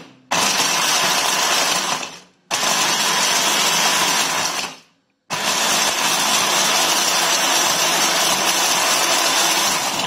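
Immersion hand blender with its chopper bowl attachment grinding sesame breadsticks into coarse crumbs. It runs in three pulses, about two seconds, another two, then about five, and the motor spins down between them.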